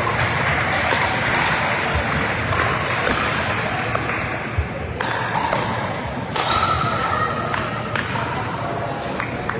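Pickleball paddles striking a hard plastic ball in a doubles rally, a series of sharp pops roughly every half second to a second, over a steady background of voices in a large hall.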